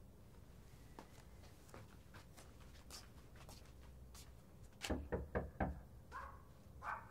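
Faint scattered clicks and taps, then a quick run of four knocks, about four a second, near the end, followed by two short muffled thuds.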